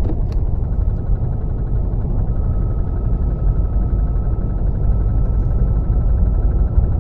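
Audi A1 with an S-tronic dual-clutch gearbox running, a loud low rumble with a steady high-pitched whine that sets in about a second in and holds. The whine is the likely strange noise that has appeared since the gearbox was taken apart and reassembled to replace a shift fork.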